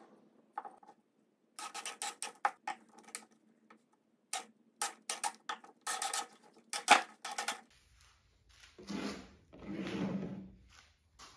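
Pine boards and blocks handled on a wooden workbench: a run of irregular sharp wooden knocks and clicks, then wood sliding and rubbing across the bench top twice near the end.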